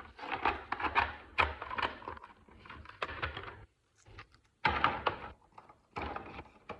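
Packaging of a phone case being handled and opened: rustling, clicks and knocks, in several bursts, with the sound cutting out for about a second a little past the middle.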